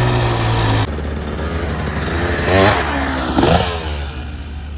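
Dirt bike engine running: a steady drone that cuts off about a second in, then the engine note rising and falling twice near the middle.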